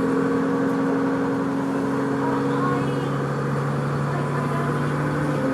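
Vehicle running with a steady droning tone that steps down to a lower pitch about two seconds in, the weird noise it is making.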